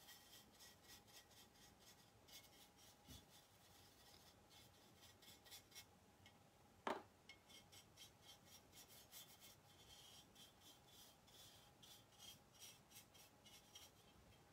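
Faint scratching of a stiff-bristled chip brush working acrylic paint into the crevices of a ceramic piece, in quick runs of short strokes, with one sharp click about seven seconds in.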